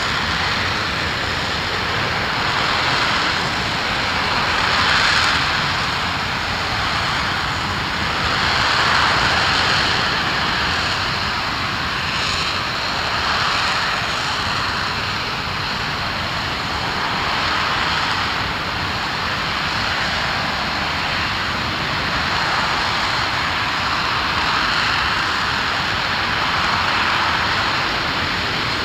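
Aerojet Rocketdyne RS-25 liquid-hydrogen/liquid-oxygen rocket engine firing steadily at full power during a mainstage hot-fire test. It makes a loud, continuous roar with gentle swells in loudness every few seconds.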